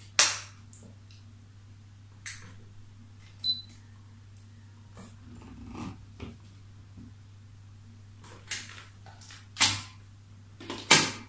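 Handling knocks and clicks: the plastic cover of an ultrasonic aroma diffuser set onto its base and its power cord and plug handled at the wall socket. About six short, sharp knocks, the loudest right at the start and again near the end, over a low steady hum.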